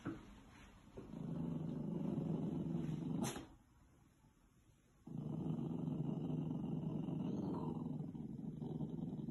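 Puppy growling at its own reflection, taking it for a strange dog: two long, low growls, the first about two seconds long and ending in a brief sharp sound, the second about four seconds long after a short pause.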